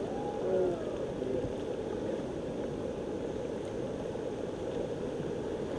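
Steady rushing of river water around an inflatable raft drifting on the current, with faint voices in the first second or so.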